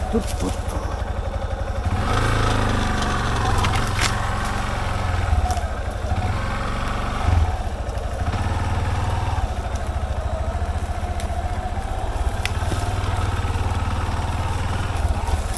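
Yamaha Serow's air-cooled single-cylinder four-stroke engine running steadily at low revs, with a few brief clicks.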